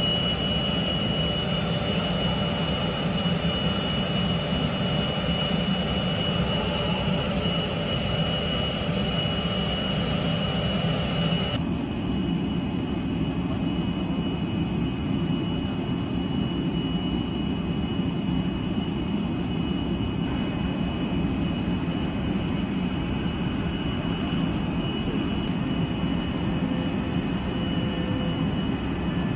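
Steady jet turbine noise on an airfield: a low rumble with a constant high-pitched whine. About twelve seconds in the sound changes abruptly, the middle range dropping away while the whine carries on.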